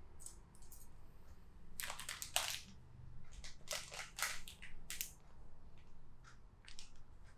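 Hands and cloth rustling against skin during a massage: a run of short, crisp rustles, about ten in three seconds, starting about two seconds in.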